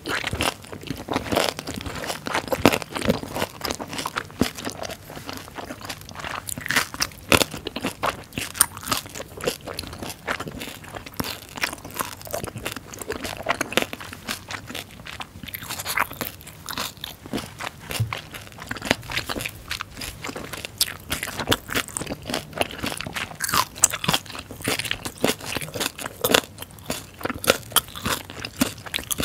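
Close-miked chewing of a mouthful of fermented skate, pork and aged kimchi, with many irregular crisp crunches.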